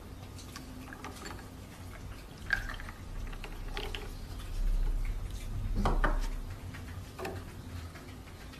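Coffee poured from a small glass beaker into a glass flask of milk and ice: a soft pour with light glass clinks, loudest near the middle.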